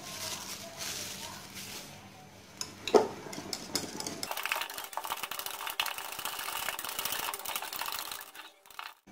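Cling film crinkling as it is pulled off a bowl, then a wire hand whisk beating a thick, partly frozen ice-cream mixture, a fast scratchy clatter from about four seconds in until just before the end. This is the second beating after an hour in the freezer, which breaks up the ice crystals.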